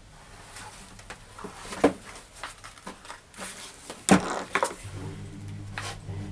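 A large hardcover picture book being handled and lifted on a table: scattered paper rustles and short knocks, with two sharper knocks about two and four seconds in.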